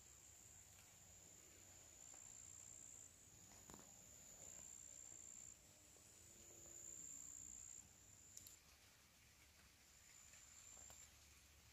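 Faint, high-pitched cricket trill coming in spells of one to three seconds that start and stop, with a couple of faint clicks.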